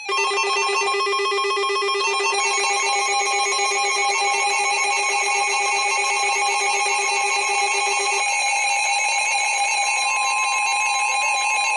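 Weather radio emergency alert alarm sounding for an incoming warning: a loud electronic alarm of several warbling, pulsing tones held steadily. About eight seconds in, the lowest tone drops out and a single steady higher tone comes to the fore.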